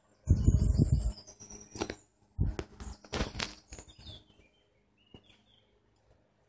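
Rumbling and rustling of a handheld camera being swung round, loudest in the first second and again around the middle, with a few short high bird chirps.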